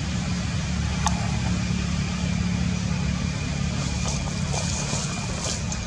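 Steady low motor rumble, like a vehicle engine idling, with a faint steady high tone and a few small high chirps and clicks over it.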